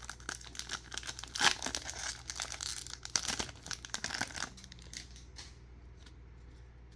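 Foil wrapper of a baseball card pack crinkling and tearing as it is pulled open and the cards slid out, with a sharp rip about a second and a half in; the rustling dies down after about four and a half seconds.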